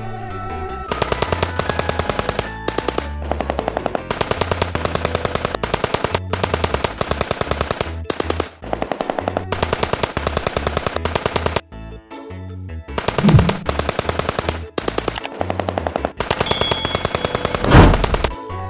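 Machine-gun sound effect dubbed over a toy blaster: rapid shots in several long bursts with short breaks, over background music. Two heavier booms stand out, one just past halfway and the loudest near the end.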